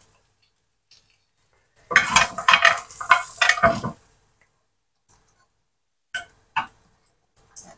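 A metal spoon scraping against a ridged grill pan for about two seconds as fried eggs are scooped out, followed by a few short clinks near the end.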